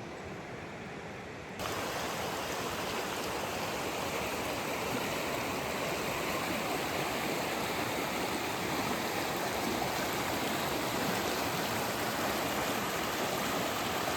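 Mountain river water rushing steadily past, a dense even hiss with no pauses; it jumps suddenly louder about a second and a half in.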